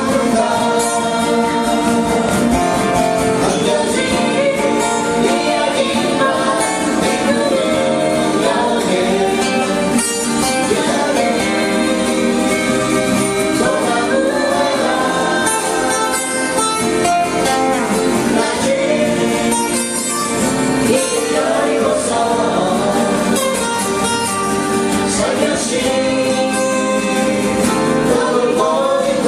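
A Korean folk-pop song sung live into a microphone, accompanied by strummed acoustic guitars. The singing and guitar run continuously at a steady level.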